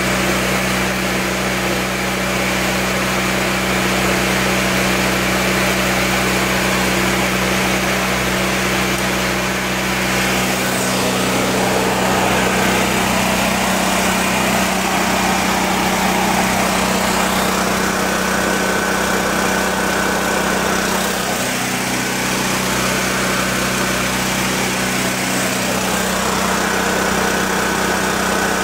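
Harbor Freight portable generator's small engine running steadily, its note shifting slightly a couple of times. It is barely loaded by the idle 220 V TIG welder plugged into it.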